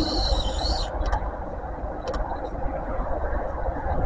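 Steady low outdoor rumble with a hiss of background noise. A high chirping sound stops about a second in, and a couple of faint clicks follow.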